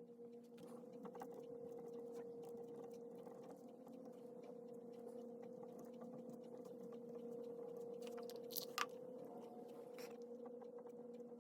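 Pen scratching on paper while writing by hand, with small ticks and one sharper click about eight and a half seconds in, over a faint steady hum.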